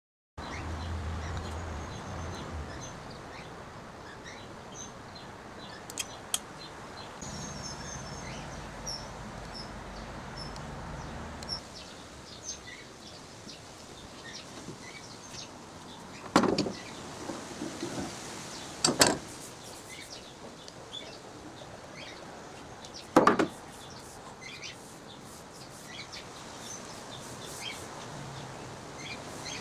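Outdoor background with birds chirping, broken by three loud sharp knocks spaced a few seconds apart in the second half, from metal bar clamps being handled against the hardwood frame.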